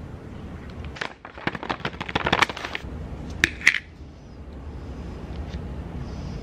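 Food packaging crackling and rustling for about two seconds as a delivered meal is unpacked, followed by two sharp clicks, like a container or lid knocking against the table or plate.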